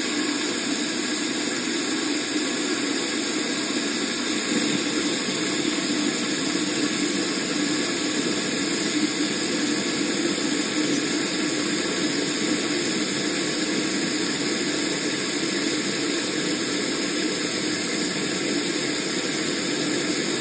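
Garden hose spray nozzle spraying water into a toilet tank to fill it: a steady hiss of spray.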